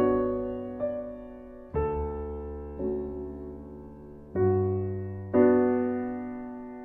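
Background piano music: slow, gentle chords, each struck and left to fade before the next.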